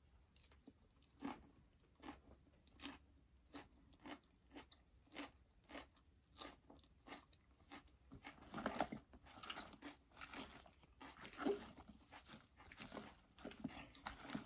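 Crisp crunching and chewing of raw salad vegetables close to the microphone: single sharp crunches at first, then denser bouts of crunching in the second half.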